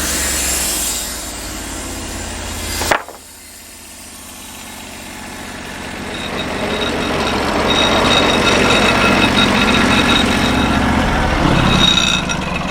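Norwood portable band sawmill running. About three seconds in there is a sharp click and the sound drops off, then it rises steadily again over the next few seconds and holds.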